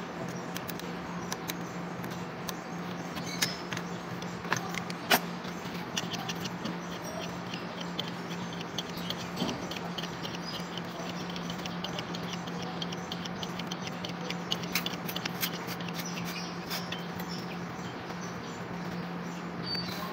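Small metallic clicks and ticks from hands working a fuel filter head on a diesel truck engine, with a quick run of light ticks through the middle, over a steady low hum.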